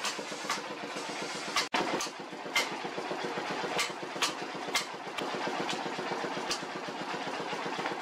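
Hammer strikes on a red-hot steel cleaver blank lying on an anvil, about two a second at an irregular pace, over a steady machine hum.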